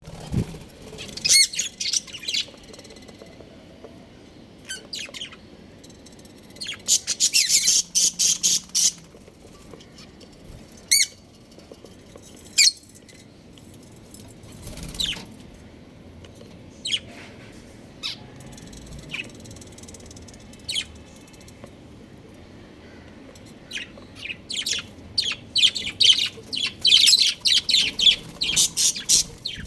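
Budgerigars chirping in quick, high, repeated calls, with dense bursts of chatter about a second in, around eight seconds in, and through the last several seconds, and single calls between.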